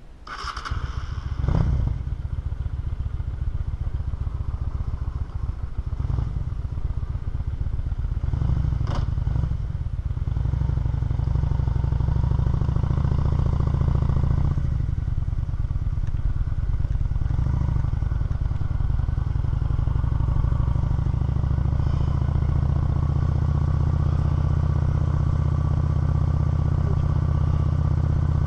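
Honda 650 motorcycle engine starting up in the first couple of seconds, then running as the bike pulls away and rides along, its note rising and dipping a few times.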